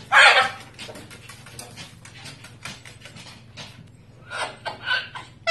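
A cockatoo gives one loud harsh squawk right at the start, then a run of light tapping clicks, and a few shorter calls near the end.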